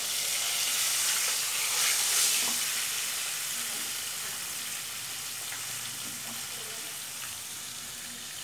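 Oil sizzling steadily as fermented pork frying in it, louder in the first couple of seconds and then easing, with a few light knocks of a knife on a wooden chopping block.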